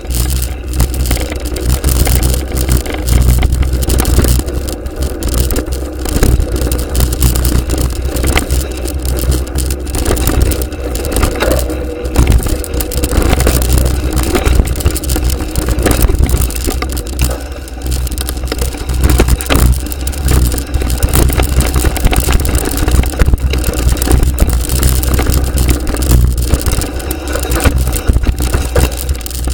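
Action-camera recording of a mountain bike ridden fast down a dirt trail: heavy wind rumble on the microphone, with the bike's tyres crunching over the dirt and frequent knocks and rattles over bumps.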